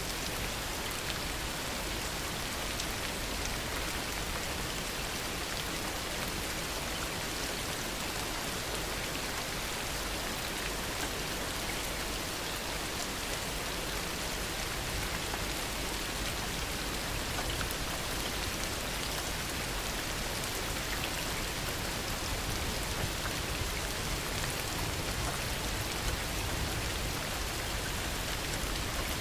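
Heavy rain falling steadily: a dense, even hiss of drops with individual drop ticks scattered through it.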